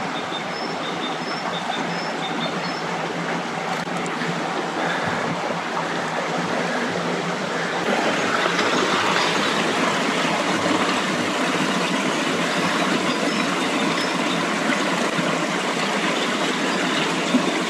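Water rushing steadily in a stream, an even hiss that grows a little louder about eight seconds in.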